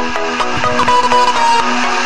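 Electronic background music: a quick run of short pitched notes with a held note in the middle.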